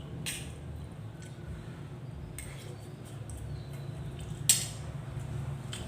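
Utensils clinking against a plate a few times during a meal, the sharpest clink about four and a half seconds in, over a steady low hum.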